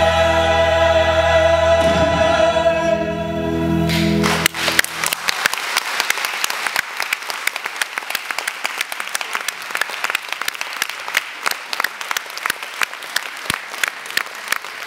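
A stage cast and ensemble singing a held final chord of a musical number over instrumental accompaniment, cutting off about four seconds in. Audience applause follows, steady clapping for the rest.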